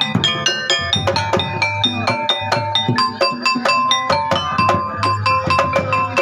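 Instrumental music of fast, ringing struck notes on tuned mallet percussion over a drum beat, several notes a second.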